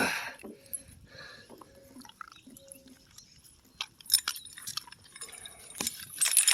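Scattered clinks and jingles of a dog's quarter-inch chain and collar hardware, in short clusters about four seconds in and again near the end, with quiet mouth sounds, as the dog shakes her head at a bitter dose of dewormer.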